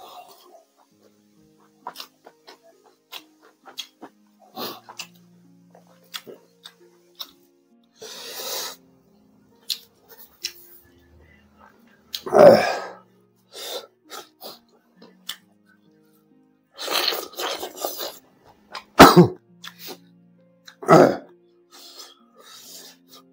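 A man sneezing and coughing in several loud, short fits while eating chilli-hot pork, with small mouth clicks from chewing between them. Faint background music runs underneath.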